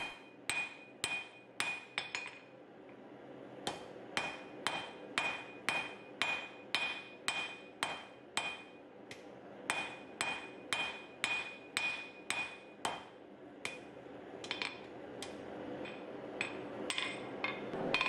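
Small hand hammer striking a red-hot mild steel bar on an anvil, about two blows a second in runs with short pauses, each blow followed by a brief ring from the anvil. A steady hiss builds up underneath in the last few seconds.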